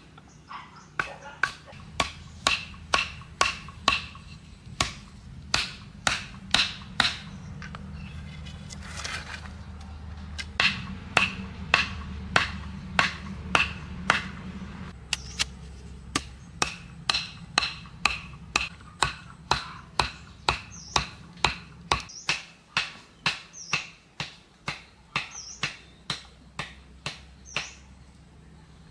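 Machete blade chopping bamboo stakes: a long run of sharp, ringing knocks, about two a second, pausing briefly about a third of the way in. Faint short bird chirps sound in the second half.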